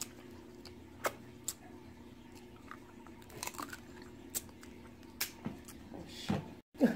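Sparse soft clicks and crackles of shrimp and snow crab shells being peeled and picked apart by hand, with chewing, over a faint steady low hum.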